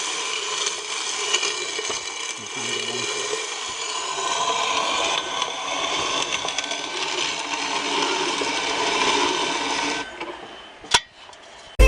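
A small motor running steadily, dropping away about ten seconds in, followed by a single sharp click near the end.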